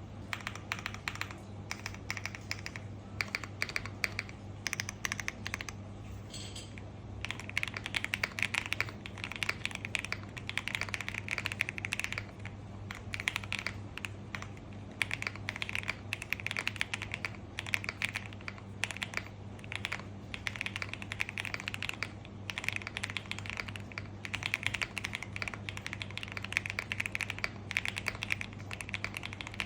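Lucky65 v1 mechanical keyboard with Akko Cream Yellow linear switches, an FR4 plate and PBT double-shot keycaps, typed on in a fast, continuous run of key clicks, a little sparser a few seconds in. A steady low hum lies underneath.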